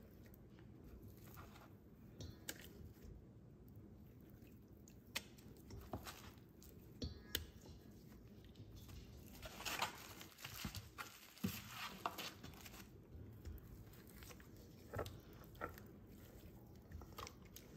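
Raw beef short ribs being laid by hand into a stainless steel bowl of soy-based marinade: faint, wet squishing of meat in liquid, with scattered soft slaps and clicks.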